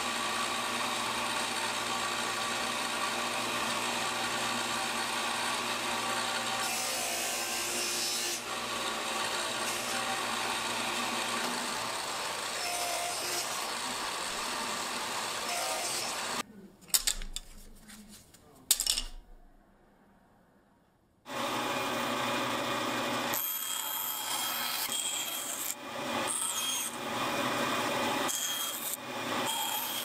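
Table saw running and cutting spline slots through the corners of a mitered black walnut frame in a spline jig, a steady machine sound. Around halfway there are two sharp knocks and a short quiet. Then a bandsaw cuts a small piece of wood in several short passes, starting and stopping.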